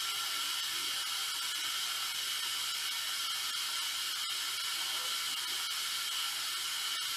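Steady high hiss with a few faint clicks, about four seconds in the clearest.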